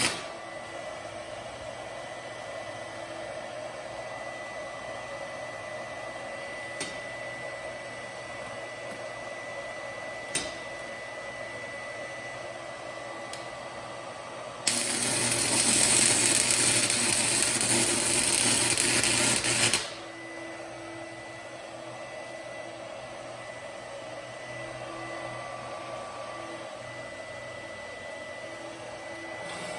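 Stick welder's arc crackling and hissing for about five seconds in the middle, loud and even, as a bead is laid on a steel fireplace grate. Before and after it only the welder's steady hum with a thin high tone is heard, with two light clicks early on.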